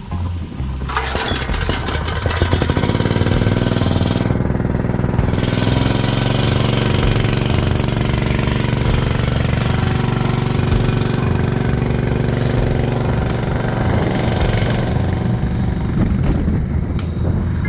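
Small gasoline engine on a truck-mounted portable water transfer pump, pull-started and catching about a second in. It revs up over the next few seconds and then runs steadily, driving the pump that unloads the water tanker.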